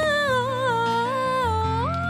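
A woman singing a wordless melody, sliding smoothly between long held notes, over low sustained accompaniment notes.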